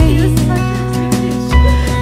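Background song with guitar, bass and a steady beat, in a short instrumental gap between a woman's sung lines.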